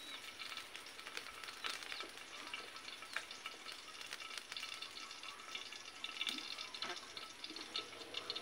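Wood fire in an outdoor cinder-block stove crackling and sizzling, with sharp pops here and there.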